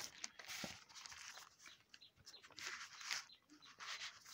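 Faint rustling of notebook paper being handled and smoothed flat, with a few light taps and clicks.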